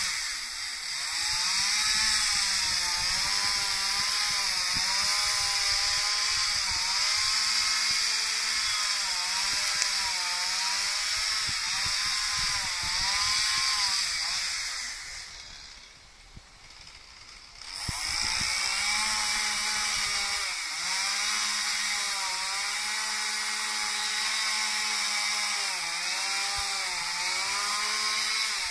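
Stihl MS 181 two-stroke chainsaw with a carving bar cutting into oak, its engine pitch rising and falling as the chain bites and frees in the wood. About halfway through it drops away for roughly two seconds, then revs back up and carries on cutting.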